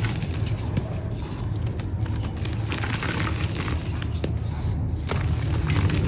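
Dry yellow mud crumbling: scattered crackles and small crunches over a steady low rumble.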